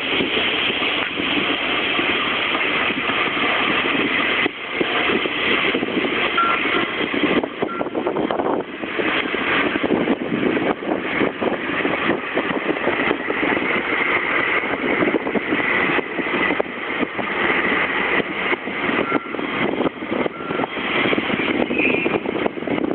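Kinuura Rinkai Railway KE65-5 diesel locomotive running steadily as it moves slowly along the tracks while shunting.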